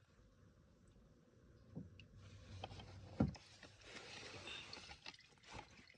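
Old engine oil splashing and trickling into a drain bucket, faint, starting about two seconds in, with scattered knocks and one dull thump a little after three seconds.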